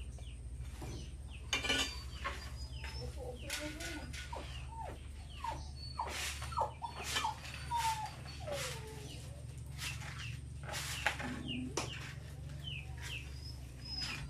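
Chickens clucking on and off, with scattered sharp knocks and clicks, the loudest about two, four, six and eleven seconds in, over a steady low hum.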